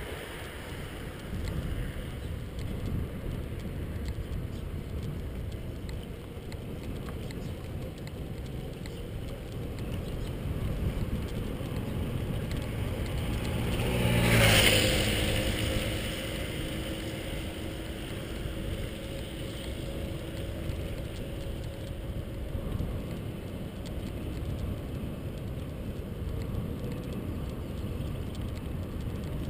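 Steady wind and road rumble on a camera riding a bicycle along a street, with a motorcycle passing close by about halfway through: its sound swells to a peak, sweeps past and fades away.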